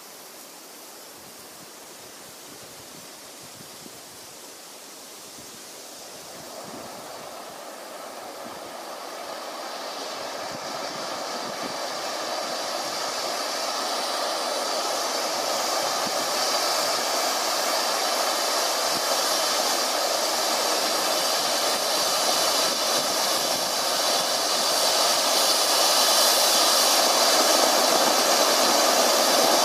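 Zink Vulkan firework fountain (gold with blue stars) burning with a steady hiss. The hiss is faint at first, then grows steadily louder and brighter from about six seconds in as the fountain builds toward its full height.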